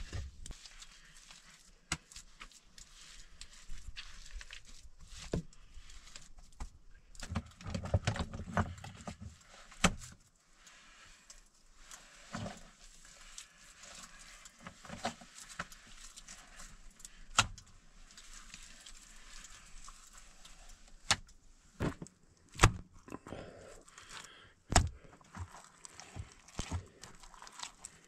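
Rough stones knocking and scraping against one another as they are handled and set into a dry-stone wall: irregular sharp knocks, with a denser crunching of rubble about eight seconds in.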